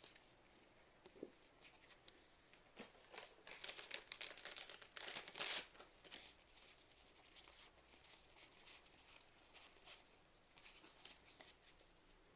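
Faint rustling and crinkling of plastic packaging being handled, with small clicks, busiest from about three and a half to six seconds in.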